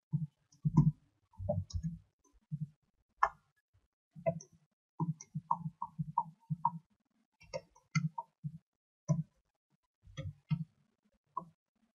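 Computer keyboard keys being pressed one at a time: an irregular run of short clicks and taps.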